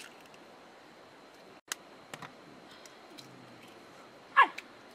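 A few light scattered clicks and taps, then a short loud animal cry falling sharply in pitch near the end.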